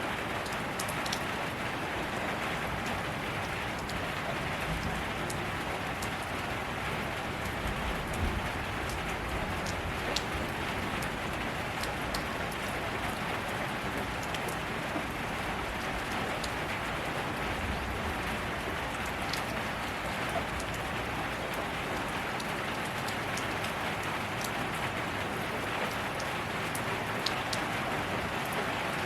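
Steady rainfall, a continuous hiss of rain on surfaces with scattered individual drop ticks and no lulls.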